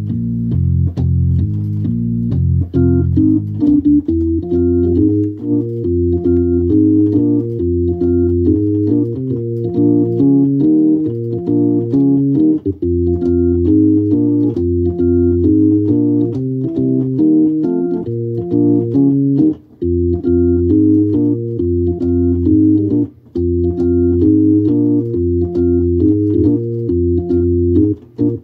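Hammond organ played live: sustained chords in the middle register over a moving bass line, changing in a steady rhythm, with short breaks in the sound about 20 and 23 seconds in.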